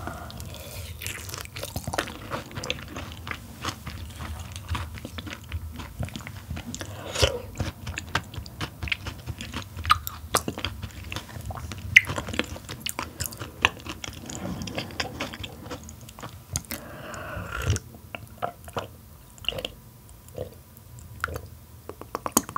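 Close-miked chewing of a mouthful of steamed yellow stingray, with many sharp, wet mouth clicks and smacks.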